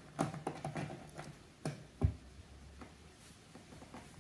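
A cat's claws scratching and pawing at a wall, a quick run of scratchy clicks, then a single thump about two seconds in.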